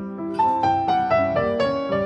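Background piano music: a run of single notes stepping downward over a held low note.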